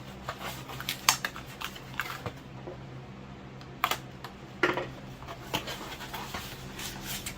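A cardboard comic-book mailer being handled and opened: scattered scrapes and rustles with a few sharp clicks.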